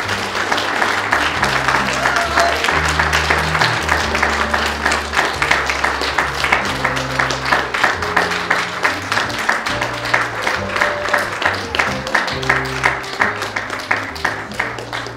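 Audience applauding over music with low held notes. About five seconds in, the applause settles into rhythmic clapping in time, about three claps a second.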